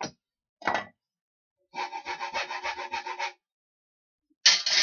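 A hand tool worked quickly back and forth on a workpiece in the manner of sawing or rasping, about six strokes a second for a second and a half. Two short scrapes come before the run and a louder, sharper one comes near the end.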